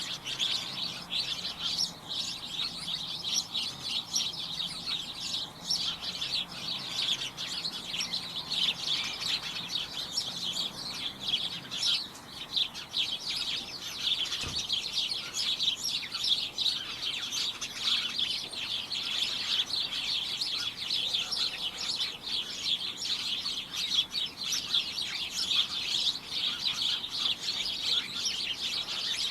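A flock of small birds chirping and tweeting together in a dense, continuous chorus of short, high chirps.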